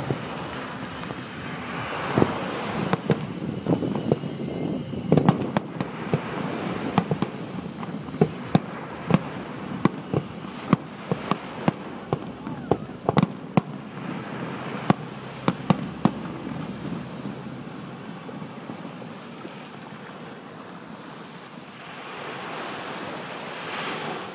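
Aerial fireworks shells bursting in a rapid series of sharp bangs and crackles, thinning out after about two-thirds of the way through. Beneath them runs the wash of waves breaking on the beach, and one wave surges up near the end.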